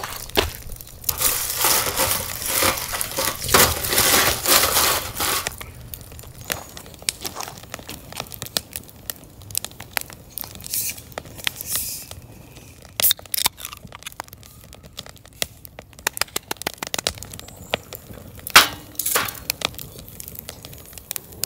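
Wood fire of split logs crackling in a stainless steel camp fire pit, with many sharp pops. For a few seconds near the start a loud, dense crackling and rustling noise covers it.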